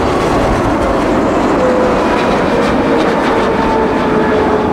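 Boeing 777-300ER's GE90 turbofan engines at approach power as the airliner passes low overhead on landing approach: a loud, steady jet roar with whining tones through it.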